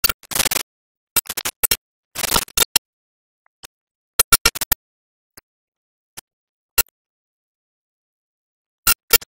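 Irregular bursts of crackle and single pops breaking up dead silence: surface noise from an old newsreel print whose soundtrack is missing.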